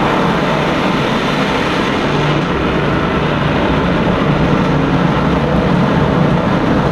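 Film sound effects played loud through a Sennheiser AMBEO soundbar: a steady, dense roar with heavy deep bass.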